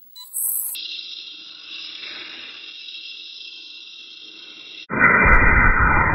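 Small electric RC drift car pulling away across a concrete floor: a steady high, hiss-like whine from its motor and gears that fades as it moves off. About five seconds in, a much louder model rocket motor firing cuts in suddenly.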